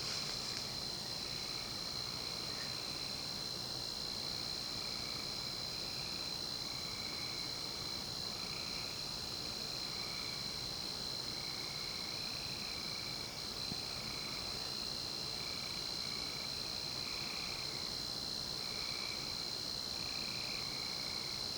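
Night chorus of crickets and other insects: a steady high-pitched drone, over which a lower call repeats in short trilled bursts about once a second.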